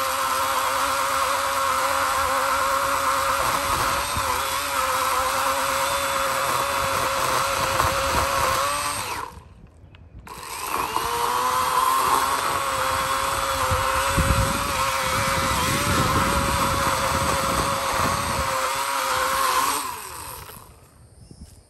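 80-volt battery electric chainsaw running with a steady motor whine as it cuts into a rotten log, with a heavier rumble while the chain bites the wood. It stops about nine seconds in, spins back up a second later with a rising whine, and cuts off near the end.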